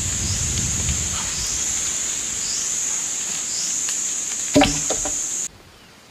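Forest insects droning steadily at a high pitch, with short chirps about once a second over the drone. A low rumble in the first second and a single thump about four and a half seconds in; the drone cuts off suddenly near the end, leaving a faint hiss.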